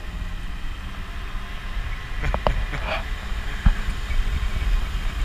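Low, steady rumble of a truck driving on a mountain road, heard from its open cargo bed, with a few rattling clanks about two seconds in and a single louder thump a little later, as the load jolts over the road.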